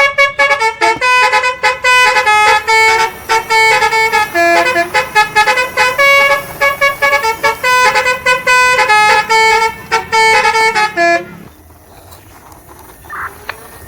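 Toy car's telolet horn playing a quick multi-note tune, several notes a second. It stops about eleven seconds in.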